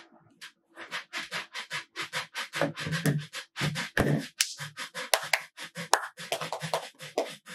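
A person beatboxing: a quick, uneven run of mouth-made kick, snare and hi-hat sounds, several a second.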